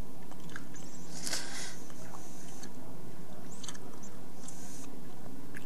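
Scattered faint clicks and taps of buttons being pressed on the 8051 project board's keypad, over a steady low electrical hum.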